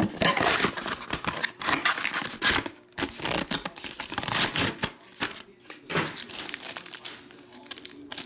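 Cellophane card-pack wrappers and a clear plastic bag crinkling and rustling in hands, in irregular bursts.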